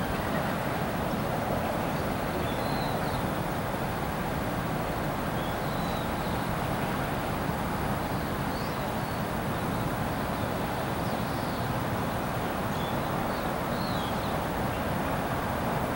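Steady broad background rumble with no distinct machine rhythm, and small birds chirping faintly and briefly every second or two.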